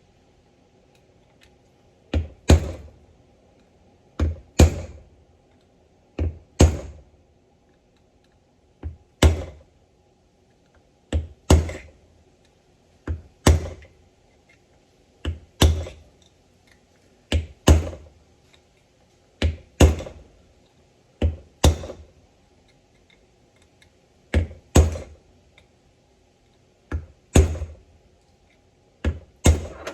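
Hammer blows in pairs, a lighter tap then a harder strike, repeating about every two seconds, as parts of a steering box are knocked apart or driven into place.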